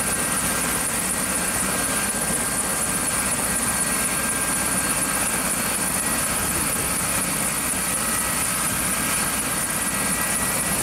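Light helicopter running on the ground, its turbine engine and turning main rotor giving a steady high whine over a rushing noise. The sound holds even throughout, with no spool-up or lift-off.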